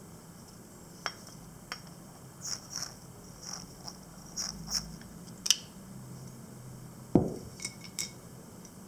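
Small handling sounds at a table: sharp clicks and short light scrapes every second or so, and one louder knock with a brief low ring about seven seconds in.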